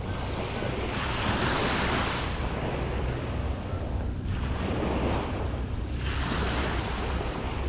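Small waves washing up on a sandy beach, the surf swelling three times, over a steady low rumble of wind on the microphone.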